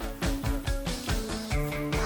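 Background music: an upbeat guitar-led rock track with a steady drum beat.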